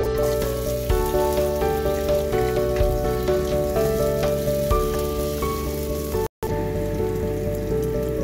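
Chopped garlic sizzling and spitting in hot oil in a pan, with background music over it; the sound cuts out briefly about six seconds in.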